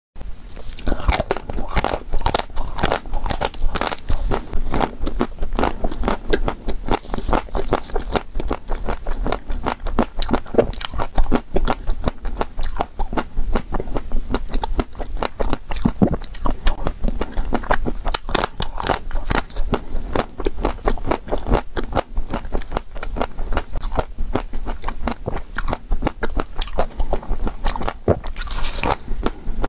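Close-miked biting and chewing of chocolate-coated ice cream, the hard chocolate shell crunching and crackling in many quick, crisp cracks.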